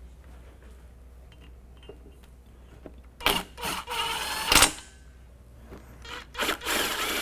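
Makita cordless impact driver driving self-tapping screws into a plastic intercooler shroud, in a few short bursts starting about three seconds in, one of them rising in pitch as the motor spins up.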